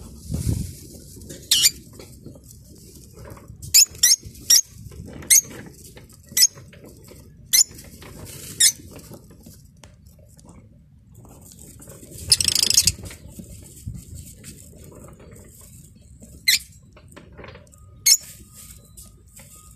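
Small ornamental cage birds giving short, sharp, high chirps, about a dozen scattered irregularly, with a denser burst of chatter lasting about a second past the middle.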